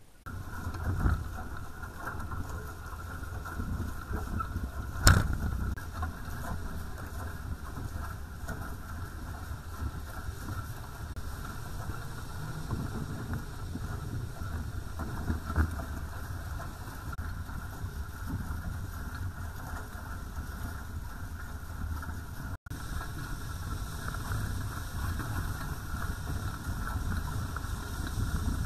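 Wind buffeting the microphone and water rushing past the hulls of a sailing catamaran moving at speed, a steady rush of noise. There is one sharp knock about five seconds in.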